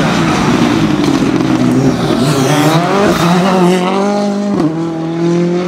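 Ford Fiesta R5 rally car's engine under hard acceleration. The pitch climbs steeply and is cut twice by quick gear changes, then holds steady.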